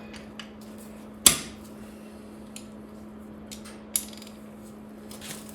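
Hand tools clinking and clicking on metal while working the tight cylinder head stud nuts of a Lotus 907 engine: a sharp metallic crack about a second in, another near four seconds, and a few lighter ticks.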